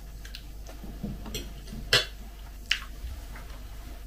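Metal fork clinking against a plate: a sharp clink about two seconds in, a second one soon after, and a few fainter small taps.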